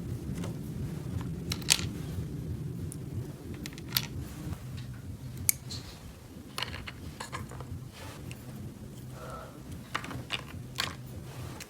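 Small plastic toy pieces being handled, with a dozen or so irregular light clicks and taps, over a steady low hum.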